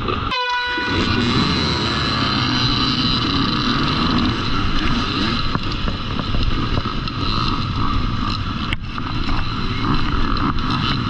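A pack of dirt bike engines running hard and accelerating. A brief steady tone sounds just after the start, and there is a sharp knock about nine seconds in.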